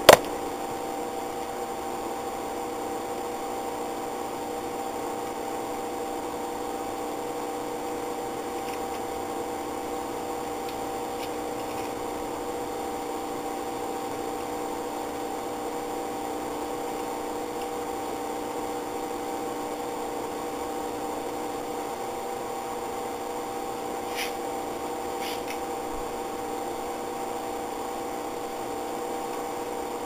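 A steady machine hum with several fixed pitches, like a fan or small motor running, holds an even level throughout. A single knock sounds at the very start, and two faint ticks about a second apart come near the end.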